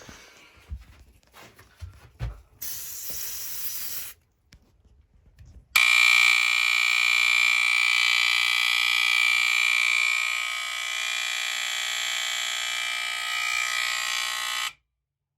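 A short hiss of canned test smoke sprayed into a Firex FXW-1 smoke alarm, then the alarm's horn sounding a loud, continuous high-pitched tone for about nine seconds before cutting off suddenly: the alarm responding to the test smoke.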